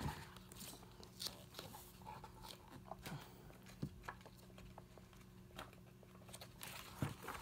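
Paper page of a hardcover comic book being flipped rapidly back and forth, giving soft scattered flaps and ticks of paper, over a faint steady hum.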